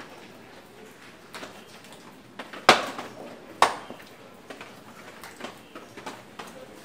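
Two sharp clacks of checkers pieces hitting the wooden board, about a second apart, as a piece is moved to make a capture.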